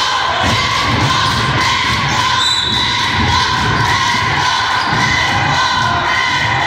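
A basketball dribbled on a gym floor, about two bounces a second, under the steady noise of a crowd in the gym.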